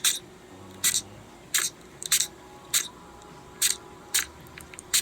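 Siberian chipmunk making a run of short, sharp puffing coughs, about eight in a row at roughly one every half second to second. These are the "pusu pusu" fits it has after each dose of medicine, which the vet judges to be coughs, not sneezes.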